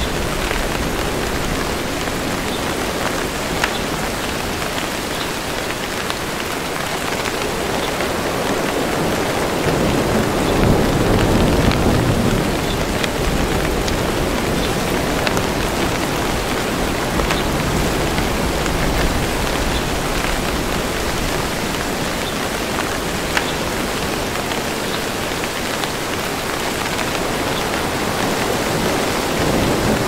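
Steady rain falling, with a low rumble of distant thunder that swells about a third of the way in and again near the end.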